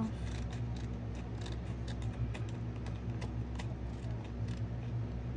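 Scissors snipping through paper, a run of small irregular clicks, over a steady low hum.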